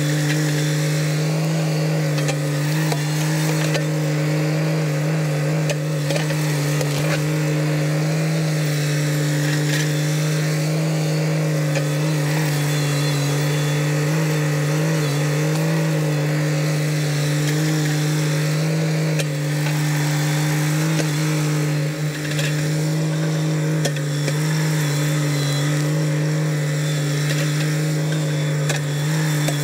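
Kubota BX sub-compact tractor's three-cylinder diesel engine running at a steady, unchanging engine speed while the front-loader stump bucket digs out a tree stump. A few faint knocks sound through the engine noise.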